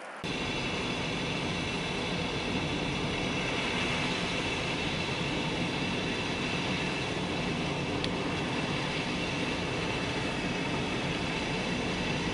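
Car driving along a road, heard from inside: steady engine and road noise that starts abruptly just after the beginning and cuts off abruptly at the end.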